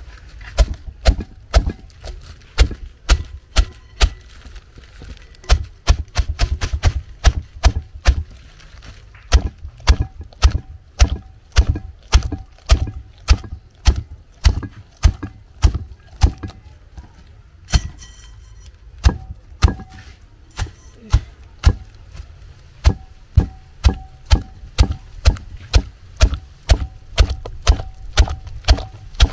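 Small bundle broom (ewedu broom) whisking and mashing softened jute leaves in a pot, the sticks knocking against the pot about twice a second, with a quicker flurry about six seconds in and a brief pause near eighteen seconds.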